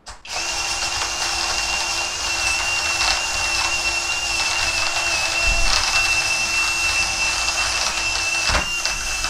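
Cordless drill-driver running at its lowest speed, spinning a small cleaning brush over a mechanical keyboard's keys: a steady high motor whine with a lower hum under the brush's scrubbing hiss, starting a moment in.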